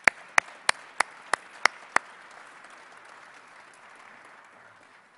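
Audience applauding. A few loud single claps close to the microphone come about three a second over the first two seconds, over the general clapping, which then dies away near the end.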